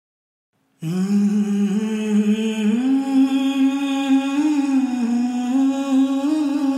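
Title music: a soft hummed melody with slow pitch glides, starting suddenly about a second in after silence.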